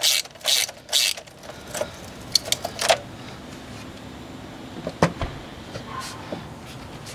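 Ratchet clicking in quick strokes, about two a second, loosening a hose clamp; it stops about a second in. A few scattered tool clicks follow, then a single sharp clack about five seconds in.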